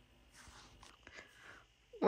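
Near silence: room tone with a few faint, soft rustles from guinea pigs shifting with their heads inside a cardboard tissue box.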